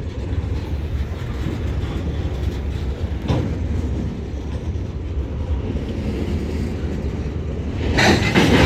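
Diesel switcher locomotive running as it pulls a cut of cars out of the yard, a steady low engine sound with a single clank about three seconds in and a louder rush of noise near the end.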